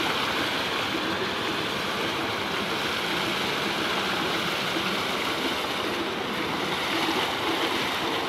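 Water gushing steadily from a tubewell's outlet pipe into a concrete tank, pouring over a bather's head and splashing into the pool.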